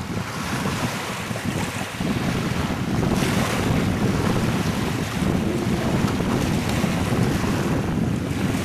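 Wind buffeting the microphone with a fluttering low rumble, over small lake waves washing onto a pebble shore. It grows louder about three seconds in.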